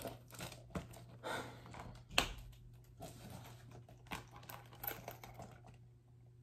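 Light handling noises from small glossy handbags: scattered small clicks and faint rustles, with one sharper click about two seconds in.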